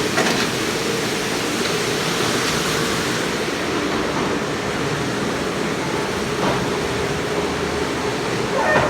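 Hobart commercial dishwasher running: a steady rush of spraying water over a steady pump hum, with a couple of light knocks near the start and end.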